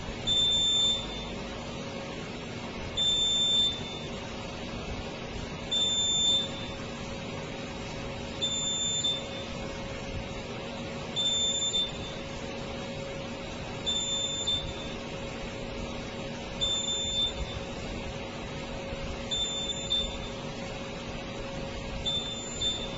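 Smoke alarm sounding: a high-pitched beep about every two and a half to three seconds, nine times in all, over a steady low hum.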